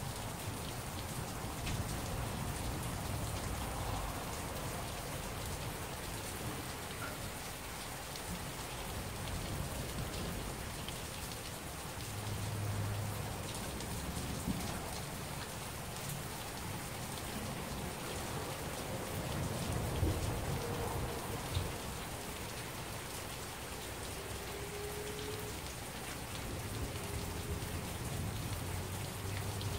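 Heavy rain falling steadily, with a couple of low rumbles of thunder partway through.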